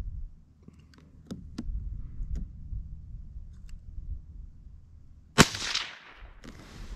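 A single shot from a Savage B22 Magnum bolt-action .22 WMR rifle firing Winchester Supreme 34-grain ammunition, about five seconds in, sharp and loud with a short ringing tail. A few faint clicks come before it.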